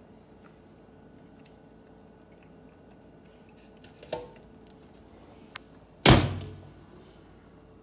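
Convection microwave oven door: it is popped open with a click about four seconds in, then pushed shut with a loud thunk about six seconds in.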